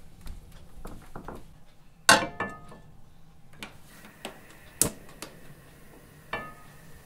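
Heavy black frying pan set down on a gas stove's metal grate and shifted into place: a series of metallic clanks and knocks with brief ringing, the loudest about two seconds in.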